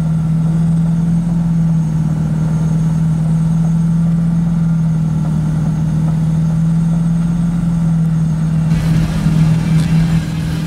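Off-road 4x4 truck engine running at steady, even revs while driving on a dirt trail, a hum holding one pitch. About nine seconds in, a louder rush of noise comes in over it.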